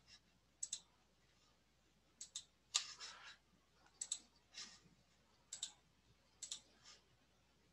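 Faint computer mouse clicks, short and sharp, coming irregularly every half second to a second or so with near silence between.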